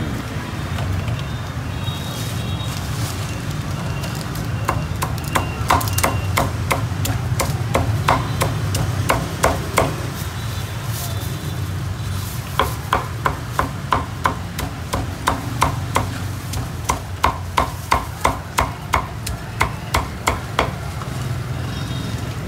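Cleaver chopping roast pork on a thick round wooden chopping block: rapid sharp strikes, about three a second, in two runs with a short pause about halfway through. A steady low hum runs underneath.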